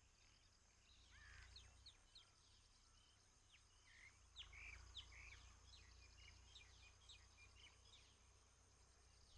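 Near silence: faint bird chirps and short calls in the background over a low steady hum.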